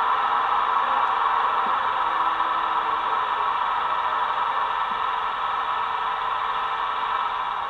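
Roco E444R model locomotive's factory DCC sound decoder playing the steady standstill noise of an electric locomotive through its small onboard speaker, a rushing sound that eases slightly near the end.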